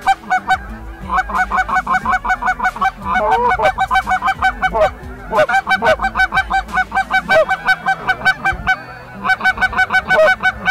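Canada goose hunting calls blown loud and fast: rapid runs of clucks and honks, about eight a second, with a couple of short pauses, calling to flocks of Canada geese in flight.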